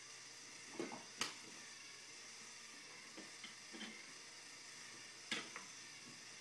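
Wooden toy trains and train-table pieces knocking and clicking together as a toddler handles them: a few sharp knocks, the loudest about a second in and another past five seconds, over a steady background hiss.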